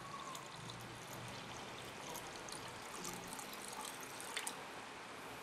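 Tender coconut water being poured in a steady stream from a steel vessel into a stainless-steel mixer-grinder jar, splashing and trickling against the metal.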